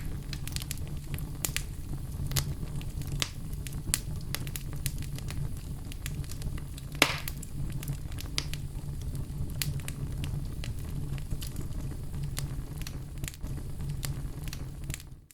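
Wood fire in a fireplace crackling: a steady low rumble of flame with frequent sharp pops and snaps, one louder pop about seven seconds in. The sound fades out at the very end.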